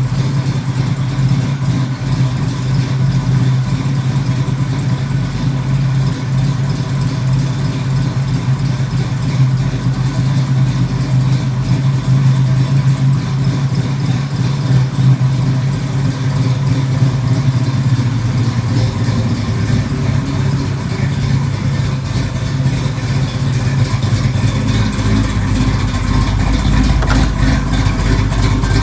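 Built 454 big-block V8 of a 1969 Chevrolet Camaro RS SS running steadily at idle, a loud, even low rumble that grows deeper near the end.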